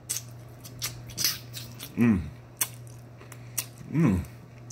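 A person eating chicken feet with mouth sounds: irregular sharp smacking and crunching clicks, and two short rising-and-falling "mm" hums of enjoyment about two and four seconds in.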